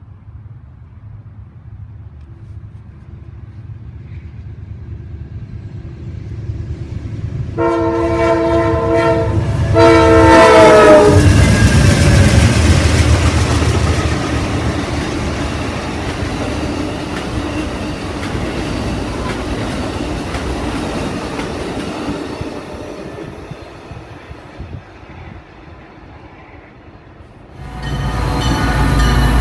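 An Amtrak passenger train approaches with a building rumble and sounds its chord horn in two blasts, a long one then a short one, the second sagging in pitch as the train reaches the platform. It passes at speed with a loud rush and clickety-clack of wheels that slowly fades. Near the end a different loud train sound cuts in abruptly.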